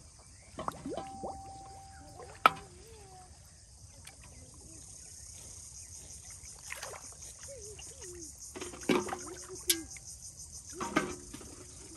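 Crickets or other insects chirring steadily in a high-pitched band, pulsing more strongly from about five seconds in. Several short knocks and thuds cut across it, the loudest a sharp click about two and a half seconds in, with another near the end.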